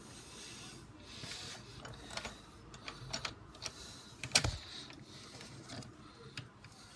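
Small plastic and metal clicks, taps and scrapes of a CPU cooler's mounting bracket and pump head being worked into line on a motherboard, with one sharp louder knock about four and a half seconds in.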